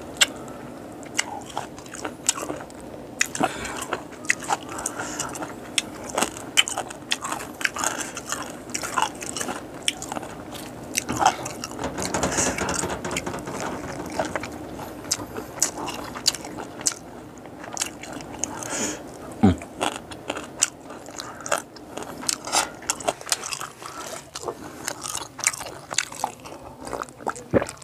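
A person chewing boiled frogs close to the microphone: wet chewing with many short, sharp crunches. Near the end there is a drink from a glass.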